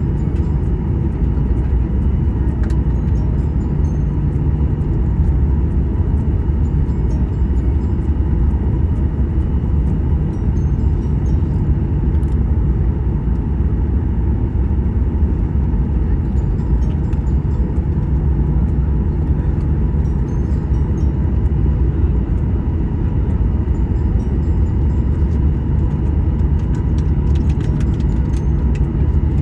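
Steady low drone of an airliner's jet engines and airflow, heard inside the passenger cabin, with a constant hum on top and no change in pitch.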